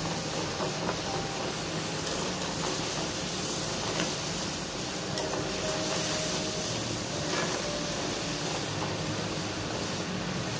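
Batter-coated potato fries sizzling steadily as they deep-fry in hot oil in a kadhai.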